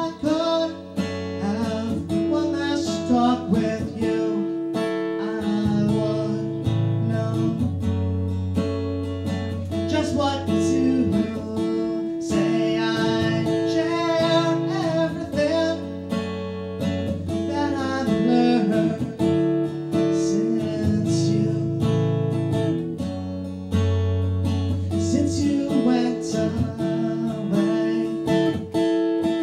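Acoustic guitar strummed in a live song performance, sustained chords ringing over a steady rhythm.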